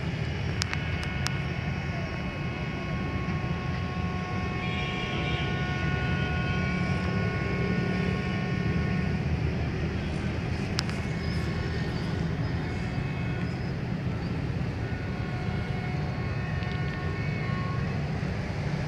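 Steady low rumble of distant engines and traffic, with a faint steady whine of several held tones that comes in twice, about four to nine seconds in and again from about twelve to eighteen seconds.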